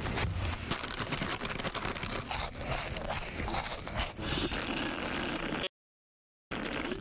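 Loud, exaggerated eating noises: wet smacking, sucking and crunching, crackly and continuous, broken by a short dead silence near the end.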